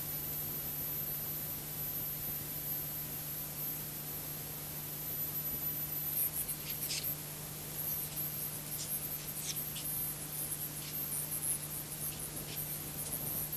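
Hiss from the audio of a scrambled analog pay-TV broadcast recorded on VHS, with a steady low hum and a faint high whine. From about six seconds in, scattered crackling clicks come through.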